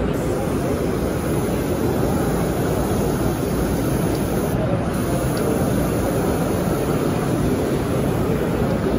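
Steady, even background din of a busy exhibition hall: a low rumble and hiss with no distinct voices or events.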